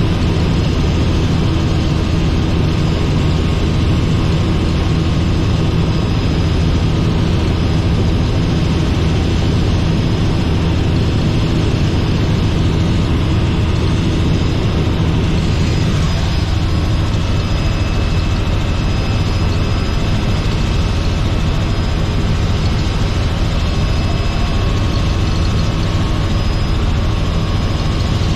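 Robinson R44 helicopter in flight, its piston engine and rotors making a steady low drone.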